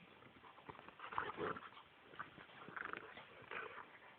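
Faint dog sounds in a few short spurts, from dogs play-fighting over a ball.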